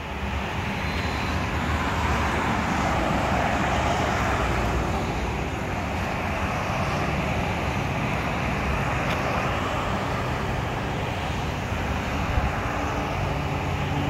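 Steady road traffic noise, swelling as a vehicle passes close by in the first few seconds. A low steady engine hum joins near the end.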